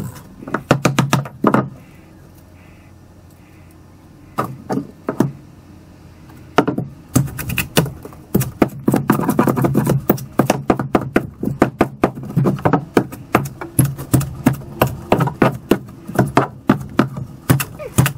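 Repeated knocks and scrapes of a metal hand tool jabbing and prying old foam out from under a boat's fibreglass dash, with chunks of foam dropping. A few strikes come early, then a short lull, then from about seven seconds a fast run of two to three strikes a second.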